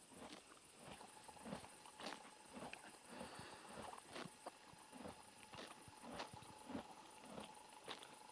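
Near silence with faint, irregular small clicks and soft knocks, about one or two a second: a horse standing close by, shifting and chewing.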